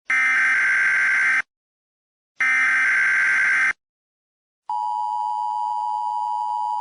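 Emergency Alert System SAME header: two harsh buzzing data bursts, each about a second and a half long with a second of silence between them. About four and a half seconds in, the steady two-tone EAS attention signal begins and holds.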